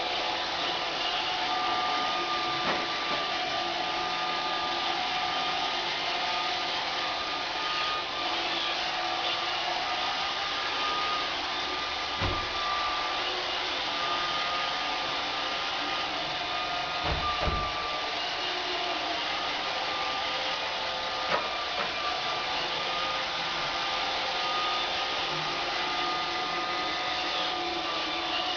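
AMI BB-8 robot vacuum cleaner running steadily, its motor and brushes making an even whirring with a steady whine. A dull knock comes about twelve seconds in, and two more close together about five seconds later.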